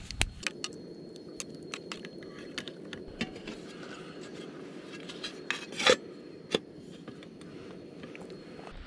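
Scattered light clicks and clinks of small hard objects, like tableware or utensils being handled, over a steady low hiss, with one louder clink about six seconds in.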